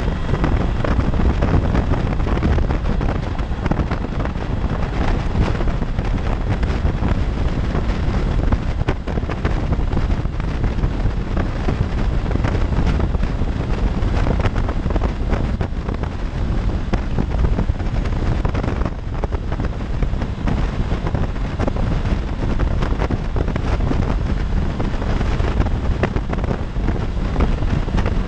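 Steady wind rush over the microphone of a 2016 Honda CB500X motorcycle riding at freeway speed, mixed with the bike's running and road noise.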